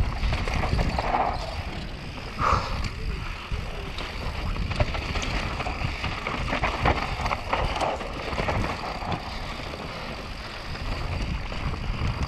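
Wind rushing over the microphone as a mountain bike descends a dry dirt and gravel trail at speed, with tyre noise on the loose surface and quick rattling clicks from the bike and stones.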